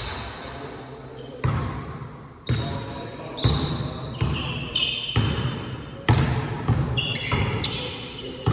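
Basketball being dribbled on a gym court, about one bounce a second, with short high sneaker squeaks between the bounces.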